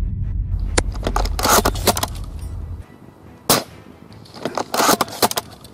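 Spring bolt-action airsoft sniper rifle (Tokyo Marui VSR-10) shooting and being cycled: a single sharp shot about three and a half seconds in, with clusters of quick metallic bolt clicks about a second and a half in and again near the end. A deep low rumble sits underneath for the first three seconds and cuts off suddenly.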